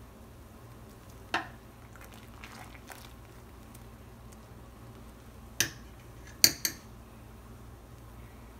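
Metal spoon clinking against the side of a stainless steel pot of boiling water while stirring. There is one clink about a second in and a few light taps, then three sharper clinks about two-thirds of the way through, the last two close together and loudest.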